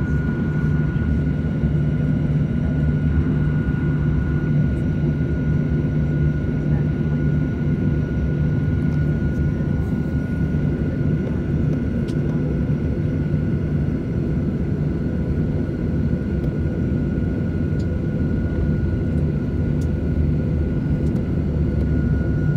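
Boeing 737-800's CFM56 jet engines running at taxi power, heard from inside the cabin: a steady low rumble with a constant high whine over it.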